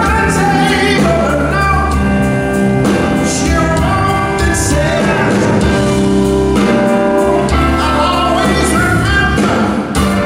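Live blues-soul band playing a slow song: electric guitar, bass and drums, with a male lead voice singing. Sharp drum strokes come in near the end.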